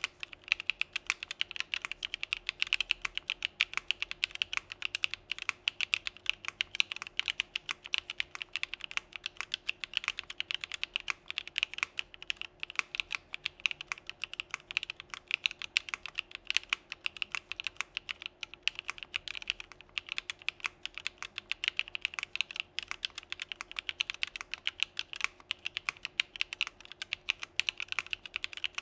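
Continuous typing on a Geonworks Frog mechanical keyboard with an aluminium plate, lubed TTC Flaming Snow linear switches and CRP Desko keycaps, with no foam or dampening: a dense, steady stream of keystrokes.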